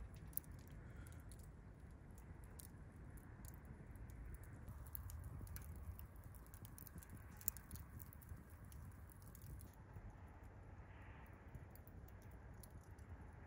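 Near silence: a faint low rumble with scattered faint small clicks and taps.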